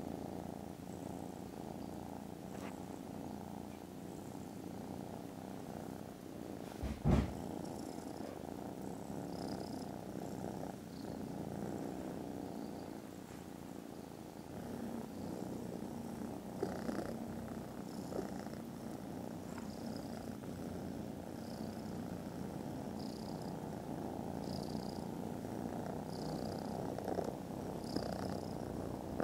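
Kittens purring steadily at close range, with one sharp thump about seven seconds in.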